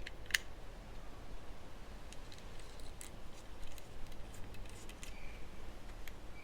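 Scattered small clicks and taps from handling small tools or parts, with one sharper click just after the start, over a faint steady low hum.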